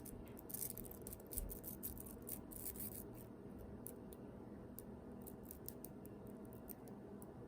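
Tiny 2.5 mm neodymium magnet balls clicking and snapping together as they are handled and shaped: faint, quick clicks, thick over the first three seconds, then sparser.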